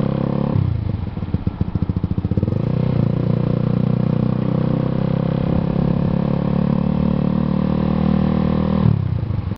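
Motorcycle engine running as it is ridden. About half a second in it drops to slow, separate chugging pulses for about two seconds, then picks up again and runs steadily.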